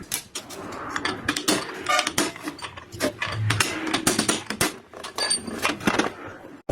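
Metal gearbox parts clinking and knocking against each other as they are handled and turned, a quick irregular series of sharp metallic clicks.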